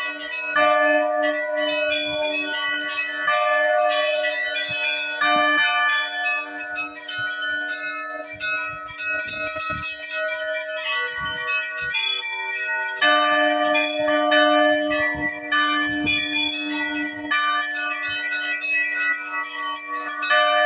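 Several large bells ringing together: overlapping strikes with long ringing tones, the notes changing every second or two and never stopping.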